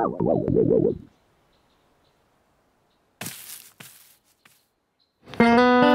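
A cartoon bird's warbling, cooing chirps for about the first second, then quiet broken by two short hissy noises. Plucked guitar music starts near the end.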